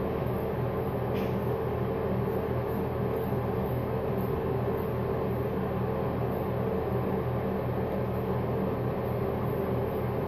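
Steady low mechanical hum with a faint, even pulsing, as from a fan or appliance running in a small room.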